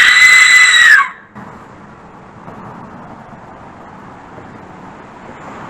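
Aztec death whistle blown once: a loud, scream-like shriek that rises in pitch, holds, and cuts off about a second in, leaving a steady low hiss.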